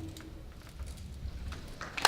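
The choir's final held chord fades out about half a second in. A hushed hall follows, with a faint low rumble and a few small clicks, and the first audience response comes in right at the end.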